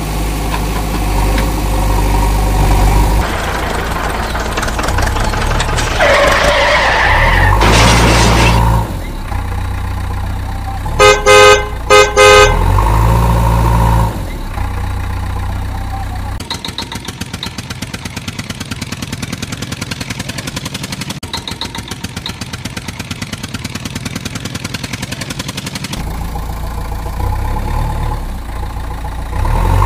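Engine running, rising and falling, with a horn honked in four short blasts, two pairs, about eleven seconds in. A fast, even ticking rattle follows for about ten seconds.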